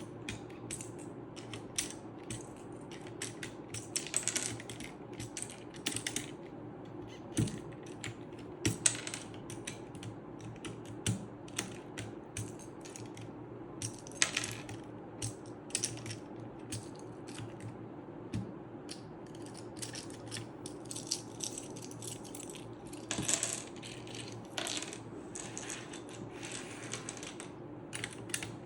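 Plastic keycaps on a mechanical keyboard being handled, giving irregular sharp clicks and small clattering clusters.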